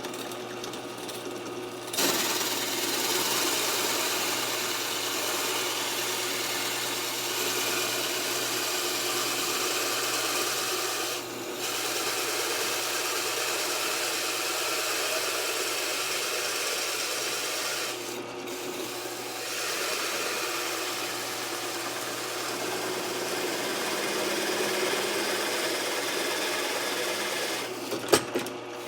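Drill press running with a circle cutter boring a 1.5-inch hole through a wooden board. The steady motor hum is joined about two seconds in by loud, even cutting noise, which eases off briefly twice and stops near the end with a few sharp clicks.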